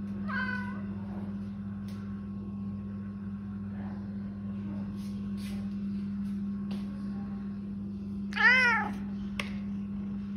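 Grey domestic cat meowing twice: a short falling meow at the start and a louder, rising-then-falling meow near the end, over a steady low hum.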